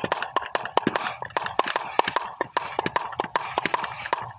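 Hand-pump garden pressure sprayer being pumped by its plunger handle: a quick, uneven run of plastic clicks, about five to seven a second, over a faint hiss, as air is pumped into the bottle to pressurise it.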